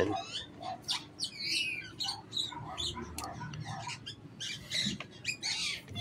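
Birds chirping and squawking in the background, with a few sharp clicks mixed in.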